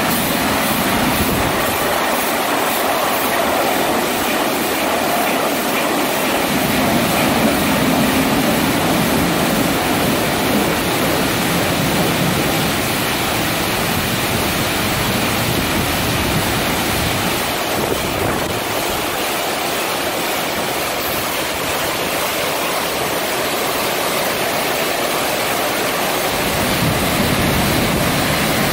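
Rollover car wash gantry at work: rotating brushes and water spray scrubbing a car, a steady rushing wash noise.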